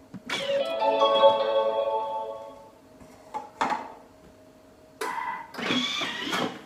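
Thermomix TM5 playing its short electronic melody of rising notes, its signal that the set mixing time is over. A few seconds later come a click and a brief noisier stretch as the lid is handled.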